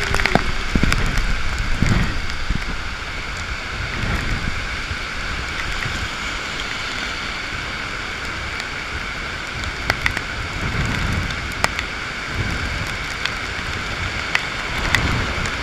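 Heavy rain pouring down in a thunderstorm, a dense steady hiss, with gusts of wind rumbling on the microphone, strongest in the first couple of seconds and again later on. A few sharp ticks stand out in the second half.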